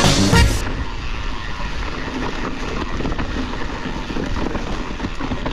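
Music cutting off about half a second in, followed by a steady low rumbling noise.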